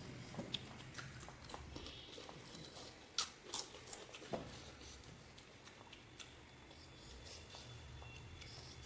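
Someone eating panipuri: crisp puri shells crunching and chewing, with a run of sharp crunches in the first half, the loudest about three seconds in.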